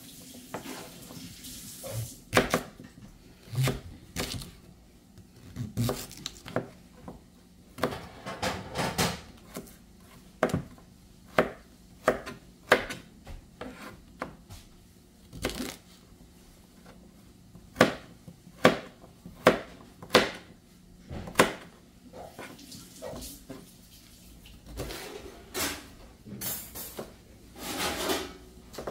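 Kitchen knife chopping peeled turnip on a plastic cutting board: irregular sharp knocks of the blade against the board, sometimes in quick runs, with short pauses between.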